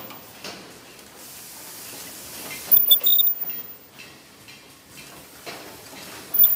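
Automatic clear book (display book) production line running, with a steady mechanical clatter. About three seconds in a loud burst of clatter and hiss marks the machine's work cycle, and another begins near the end.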